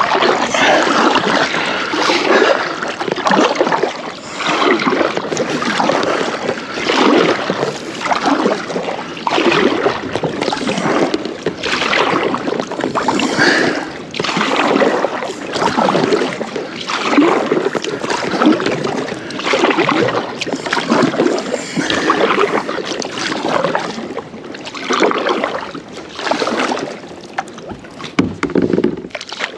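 Kayak paddle strokes in the water, a steady rhythm of splashes and swishes about once every second and a bit, as the double-bladed paddle dips on alternate sides.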